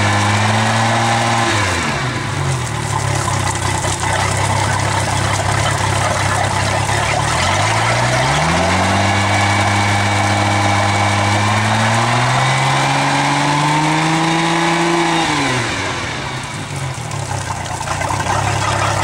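1992 Rinker's inboard sterndrive engine running on the trailer with a water hose on the outdrive, being revved up and down. It drops from raised revs to idle about two seconds in, climbs again around eight seconds, rises further a few seconds later, then falls back to idle near the end.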